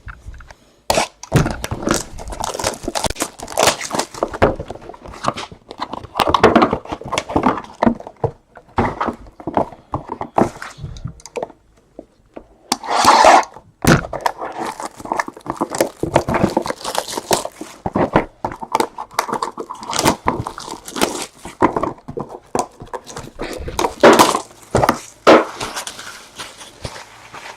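Irregular rustling, tapping and knocking from handling trading cards and their packaging, with a longer, louder rustle about thirteen seconds in.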